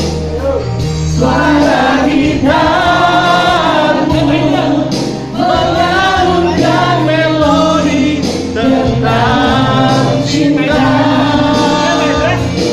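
A woman singing into a microphone over amplified musical accompaniment with steady bass notes, while a group close by sings along.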